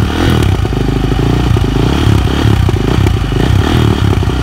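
Dirt bike engine running close by, loud and fairly steady, just after being kick-started on the first kick.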